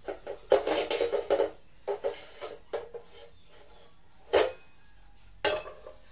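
A square ceramic-coated frying pan being handled with a wooden spatula: a run of short knocks and clatters as the pan is tilted to spread the oil and set back down on the cooktop, with one sharp knock about four seconds in.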